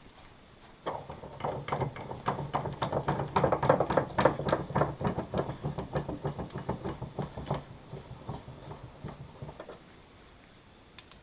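Rapid run of knocks on metal, about four or five a second over a low hum, building up and then dying away after about nine seconds: a tight, seized part of a McCulloch 850 chainsaw's oil pump being worked on in a steel vise to free it.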